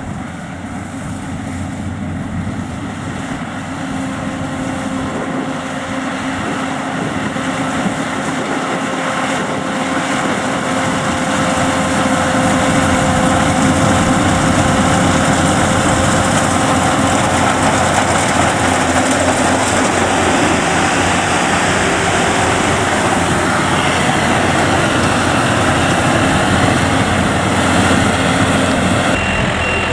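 Yanmar tank-type rice combine harvester running, a steady engine and machinery drone that grows louder about twelve seconds in.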